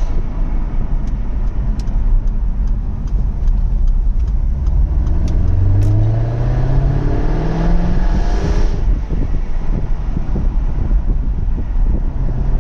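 Jaguar F-Type R's supercharged V8 exhaust rumbling, with a scatter of sharp pops in the first half, then the engine note rising as it revs up for a few seconds before dropping back to a rough, noisy rumble.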